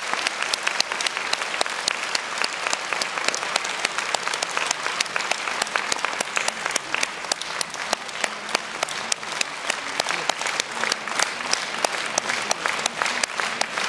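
Audience applauding steadily, with single claps close by standing out sharply over the crowd's clapping.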